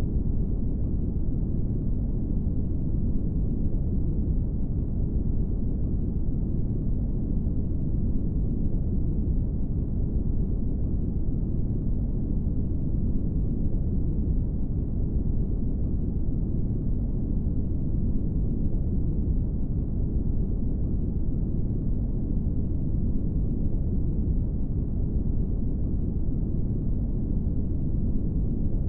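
Brown noise: a steady, deep rushing hiss weighted to the low end with little treble, unchanging throughout.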